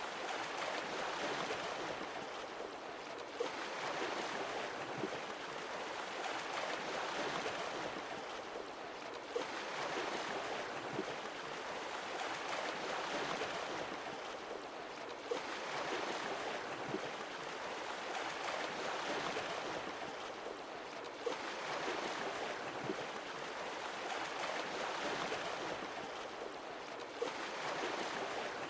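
Sea waves washing on the shore, each one swelling and drawing back about every six seconds, with a short sharp tick as each new wave breaks.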